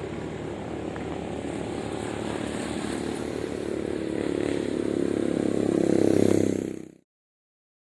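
A motor vehicle engine running with a rapid pulsing beat, growing steadily louder, then fading out quickly about seven seconds in.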